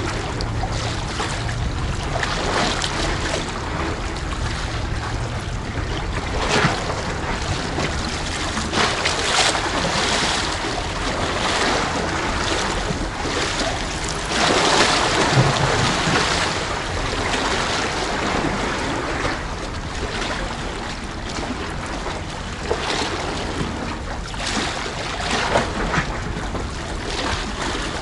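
Wind rumbling on the microphone over sea waves washing against a tetrapod breakwater, a steady rush with a few louder surges, the strongest about halfway through.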